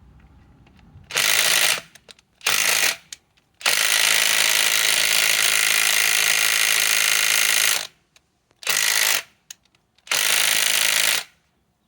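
Bosch GDS18V-330C cordless mid-torque impact wrench hammering in five bursts, the longest about four seconds, failing to break loose a large lag screw stuck in wood.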